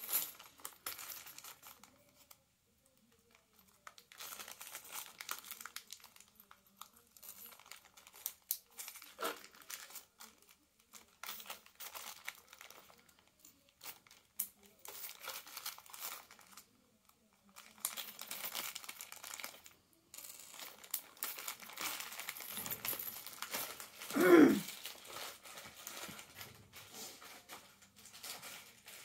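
Small clear plastic bags of metal snaps crinkling and rustling in irregular spells as they are handled and snaps are picked out, with small clicks. A single louder, brief thump about 24 seconds in.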